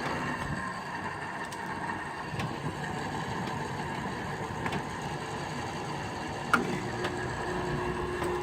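Fedders 5,000 BTU window air conditioner running on high cool: a steady whir of fan and airflow. A sharp click comes about six and a half seconds in, after which a steady low hum joins in.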